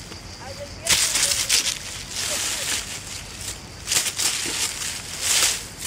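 Grass and watermelon vines rustling and crunching in several short bursts as watermelons are pulled from the vines and handled.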